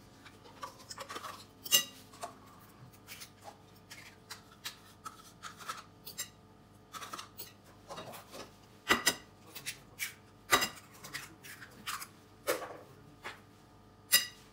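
Kitchen handling sounds: a spoon scraping and tapping as yogurt is scooped from plastic pots into a bowl, then a few sharp knocks as two eggs are cracked against the bowl.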